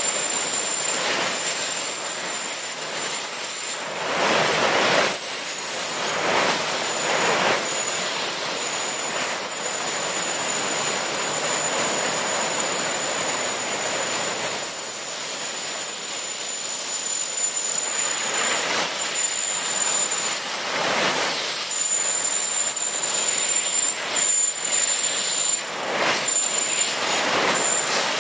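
Floodwater rushing and churning over and below a dam spillway: a loud, steady rush that swells every few seconds, with a steady high hiss over it.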